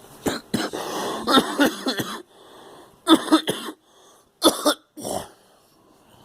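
A girl coughing in a fit: a rapid string of coughs lasting about two seconds, then after a short pause three shorter bursts of coughing.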